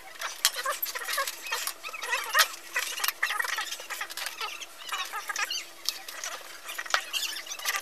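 Paper card and marker pens being handled: irregular rustling and scratching with many sharp clicks, over a faint steady hum.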